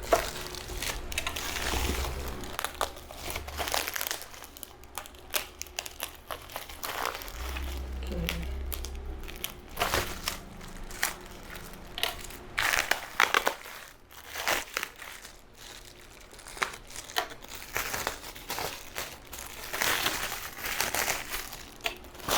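Packaging crinkling and rustling in irregular bursts as an item is handled between products.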